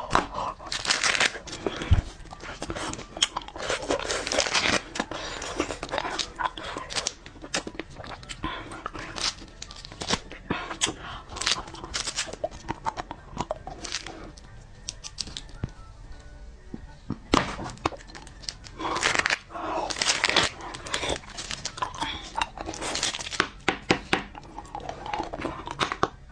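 Wrappers crinkling and tearing in short crackly bursts, with mouth sounds of eating candy, over background music.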